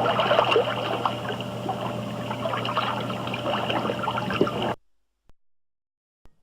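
Water splashing and trickling, busy and irregular, which stops abruptly a little under five seconds in, leaving silence.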